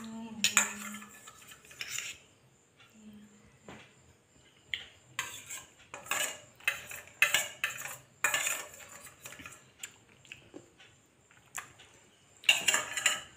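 Steel spoons scraping and clinking against small steel bowls as two people eat sweet vermicelli pudding. The clinks come irregularly in short clusters, with brief quiet gaps between them.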